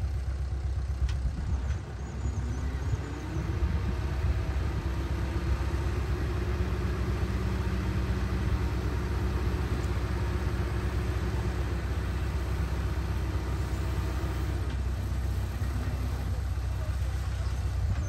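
Diesel dump truck engine revving up and holding high revs to drive the hydraulic hoist as the tipper bed rises, then easing back down near the end, over a steady low rumble.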